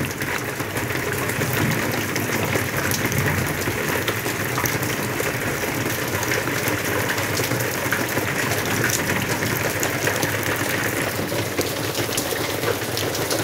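Steady rain falling, with many small drop hits crackling through a constant hiss.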